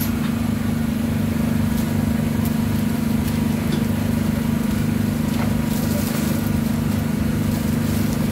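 An engine running steadily with a low, even drone.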